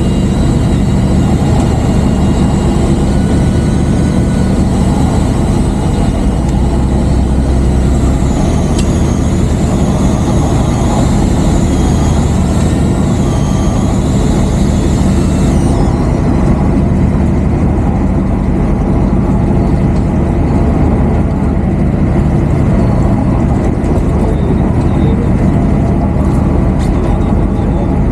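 Boat engine running steadily with a loud, even drone. A thin high whine rides over it and cuts off about sixteen seconds in.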